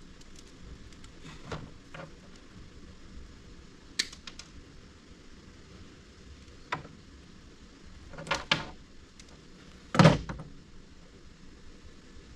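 Hand tools being handled during wiring repair: a few scattered sharp clicks and knocks, a quick cluster of them about eight seconds in, and the loudest, a thump, about ten seconds in.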